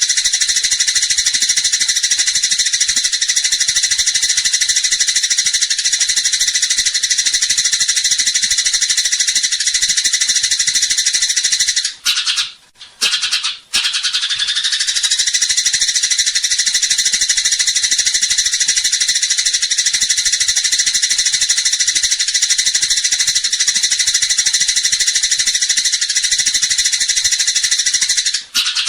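Eurasian tree sparrows chattering in a dense, unbroken run of high chirps, typical of a 'fighting' sparrow call, with two brief gaps about twelve and thirteen and a half seconds in.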